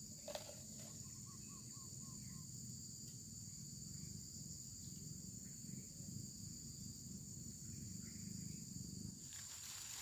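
Steady, high-pitched drone of a crickets' and insects' chorus, with a low rumble underneath that stops about nine seconds in. A short run of faint chirps comes about a second in.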